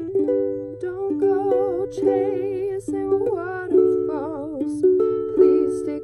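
Ukulele strummed in changing chords, with a woman's voice singing a wavering melody over it from about a second in.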